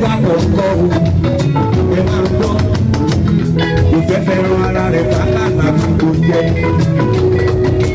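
Upbeat band music with a steady drum beat and guitar.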